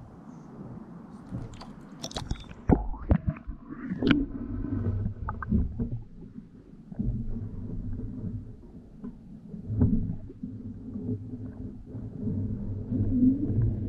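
Camera dipped into a lake, with a few knocks and splashes as it goes under about two to four seconds in. After that comes the muffled underwater rumble and low hum picked up through the camera's waterproof housing.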